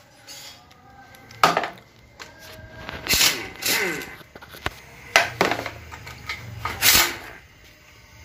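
Impact wrench run in about six short bursts, spinning out the oil-pan bolts of an automatic transmission; after each trigger pull the tool's motor winds down in a falling whine.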